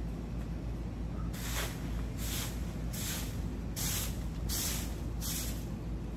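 Straw broom sweeping leaves and grit across bare dirt: six brisk swishes, roughly one every three-quarters of a second, starting a little over a second in.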